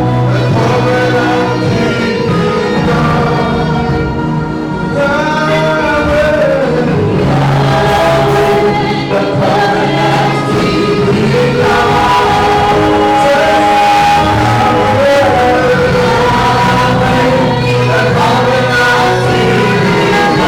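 Live gospel music: singers with a band, sung melody lines held over a steady bass.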